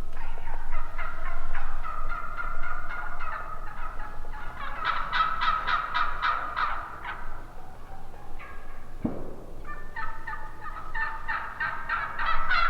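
Turkeys gobbling, several rapid, rattling calls overlapping one another. There is a short lull about eight seconds in, then the gobbling starts up again loudly near the end.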